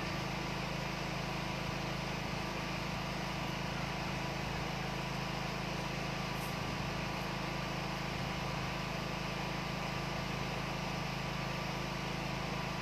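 Steady background hum with an even hiss, unchanging throughout, like a running fan or air conditioner. A faint tick or two about six and a half seconds in.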